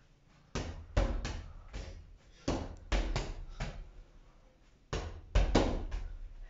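Rubber volleyball being passed repeatedly against a wall with the forearms and fingertips: a string of sharp slaps as the ball strikes the wall and the player's arms and hands, about ten hits, with a brief pause before the last few. Each hit rings briefly in the small room.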